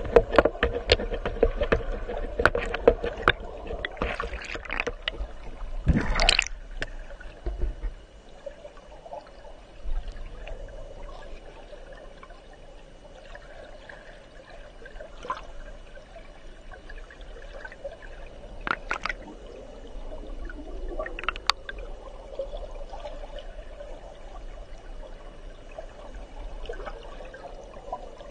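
River water heard from inside a submerged camera housing: muffled rushing with many clicks and knocks over the first several seconds and a louder scrape about six seconds in. After that it settles to a steadier, quieter flow with a few sharp ticks.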